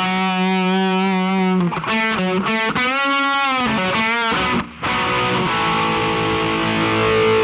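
Music: a distorted electric guitar playing held notes, with a few bent notes in the middle and a short break before the last long chord.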